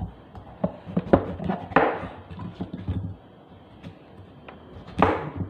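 Cleaver chopping squash (kalabasa) on a cutting board: a string of uneven knocks and short scrapes, a quieter stretch about three seconds in, then a louder chop near the end.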